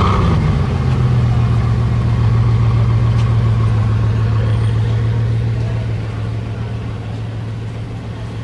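Bugatti Veyron's 8.0-litre quad-turbocharged W16 engine starting up: it catches with a loud flare at the very start, then drops into a steady low idle that eases off a little in loudness during the second half.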